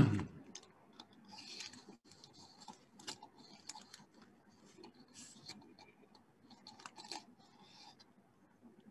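A short loud sound falling in pitch right at the start, then faint scattered clicks and brief scratchy rustles.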